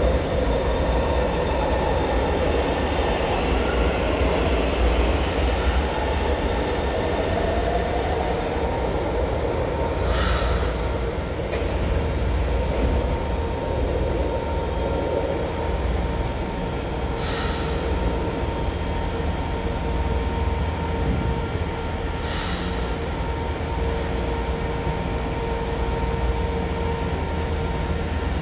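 São Paulo Metro trains in an underground station: a train pulls out over the first few seconds with a gliding motor whine and wheel squeal over a low rumble. A train then stands at the platform with a steady electrical hum, and three short hisses come about 10, 17 and 22 seconds in.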